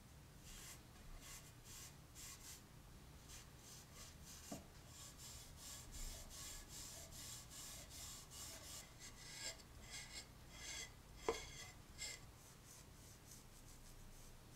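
Faint cloth rag rubbing oil into a wooden axe handle in repeated short strokes, two or three a second. A single sharp tap about eleven seconds in is the loudest sound.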